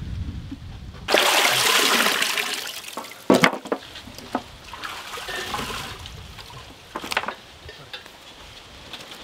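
Water splashing and pouring as whole raw chickens are washed in a large steel pot of water and on a wet steel tray. The loudest rush of water starts suddenly about a second in, with a few sharp knocks later on.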